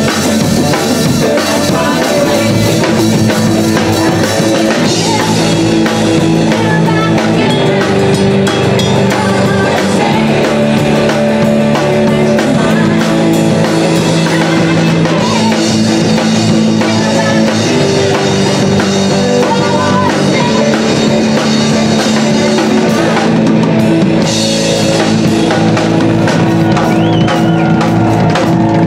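Rock'n'roll band playing live, loud and steady: electric guitar, upright bass and drum kit.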